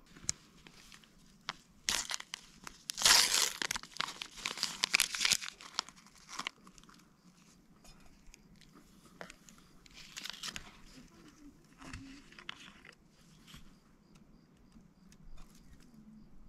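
Crinkling and rustling of something being handled, in irregular bursts: a long loud stretch early on, then two shorter ones later.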